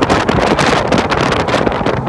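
Heavy wind buffeting on the microphone over the steady exhaust note of a Ram's Hemi V8 running through a Magnaflow 12288 muffler and 5-inch tips.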